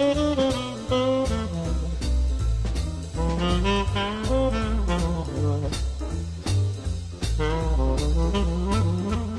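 Background swing-jazz music: a saxophone-led melody over brass, walking bass and a drum kit keeping a steady beat.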